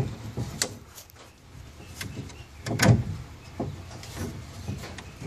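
Wooden egg-turner tray pieces and a bolt knocking and rubbing as they are lined up by hand: a few light knocks, with a louder thump about three seconds in.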